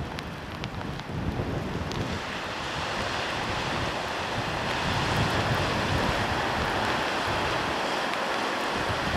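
Sea waves washing on the shore, with wind buffeting the microphone.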